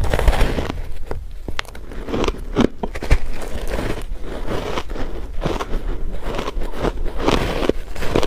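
Ice being bitten and chewed, with repeated loud, irregular crunches and crackles.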